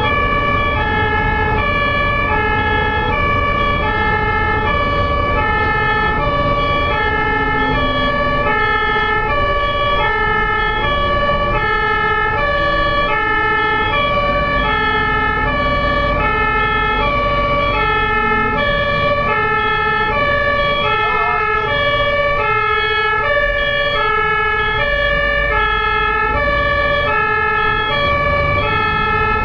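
Japanese ambulance siren sounding its two-tone hi-lo call, a high and a low note alternating evenly and loudly, over a low rumble of road and engine noise.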